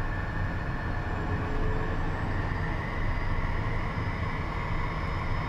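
Cockpit noise of a Beechcraft Premier jet taxiing on its twin Williams FJ44 turbofans: a steady engine whine over a low rumble, the whine rising slightly in pitch partway through.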